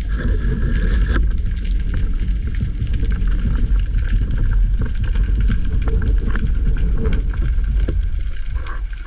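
Underwater recording on a GoPro in its housing: a steady low rumble of water moving past the camera as the spearfisher swims up, with scattered small clicks and crackles.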